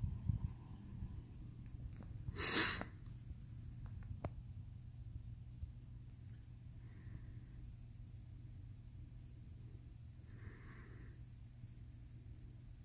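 A cricket chirping steadily, about three short high chirps a second, over a low steady hum. A brief loud rush of noise comes about two and a half seconds in.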